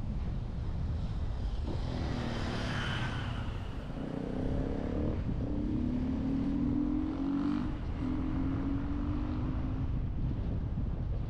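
Steady wind and road rumble from a moving car. A little after the start a noisy swell rises, and from about four seconds to ten seconds another vehicle's engine hums past, its pitch slowly falling.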